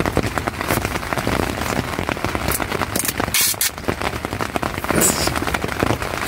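Heavy rain pattering hard on the tent fly, heard from inside the tent, as a dense continuous patter. Two short high-pitched rasps cut through it, about three and a half seconds in and again at five seconds: gaffer tape being pulled off the roll and torn to patch a leak.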